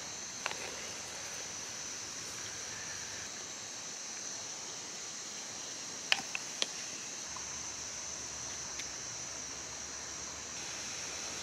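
Steady high-pitched drone of insects, with a couple of short sharp clicks about six seconds in.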